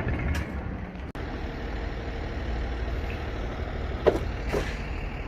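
Truck engine running with a steady low rumble, broken by two sharp knocks about half a second apart near the end.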